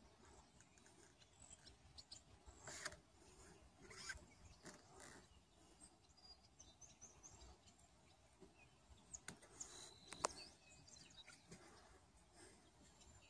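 Near silence: faint outdoor ambience with a few soft, high bird chirps and scattered faint clicks, the sharpest about ten seconds in.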